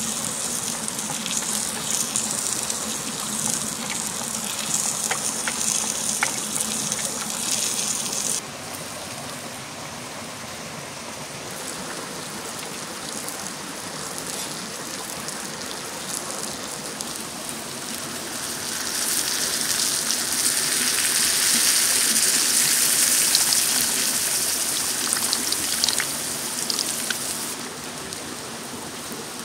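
Food sizzling on a hot cooking stone: a steady hiss with occasional sharp crackles. It changes abruptly about 8 seconds in, then swells louder for several seconds before dropping again near the end.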